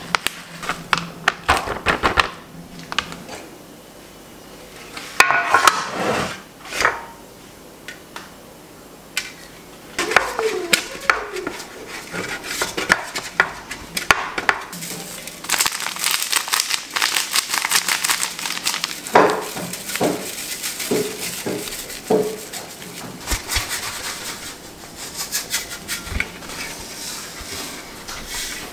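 Kitchen handling sounds: a glass mixing bowl, an aluminium baking pan and utensils clinking and knocking on a wooden cutting board. There are scattered knocks early on, and busier continuous handling in the second half.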